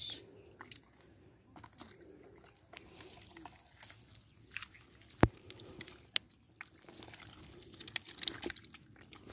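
Bare hands digging and scooping through wet, sticky mud: scattered wet squelches and crackles, with one sharp click about five seconds in and a quick run of crackles near the end.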